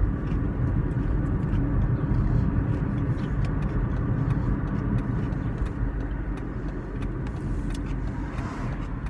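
Steady low rumble of a moving car heard from inside the cabin, with faint scattered small clicks.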